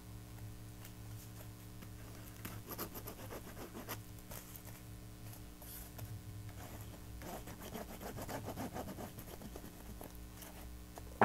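Faint, scattered scratching and rubbing of hands on paper and cardstock as glued pieces are pressed and smoothed down onto glitter paper, over a low steady hum.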